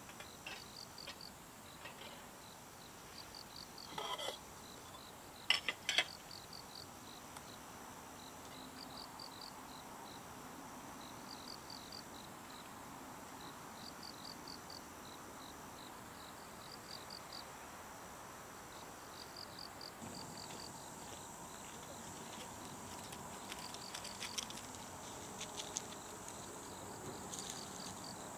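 Crickets chirping: short groups of rapid high chirps repeating every second or two over a steady, thin, high insect tone. A few sharp clicks stand out about four and six seconds in.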